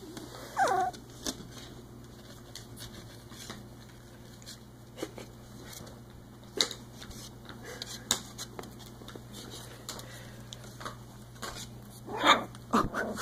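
Three-week-old Icelandic Sheepdog puppies at play: a short high puppy squeal about half a second in, scattered light clicks and scratches from paws and claws, and near the end a louder burst of small play growls and yips.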